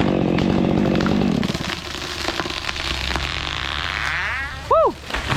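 Chainsaw running at full throttle, then dropping back to idle about a second and a half in. Scattered snapping and crackling follow, with a rushing noise building, and a short whistle that rises and falls near the end.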